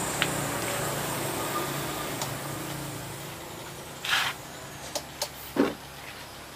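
A steady low mechanical hum that fades over the first three seconds, then a few light clicks and two brief rustling noises, about four and five and a half seconds in.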